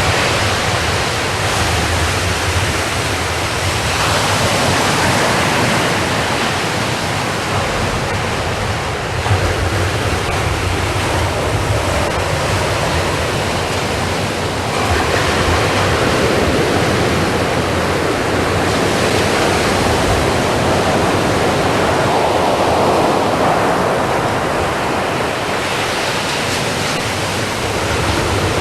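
Ocean surf: waves breaking and washing ashore as a continuous rush, swelling every several seconds as each wave comes in.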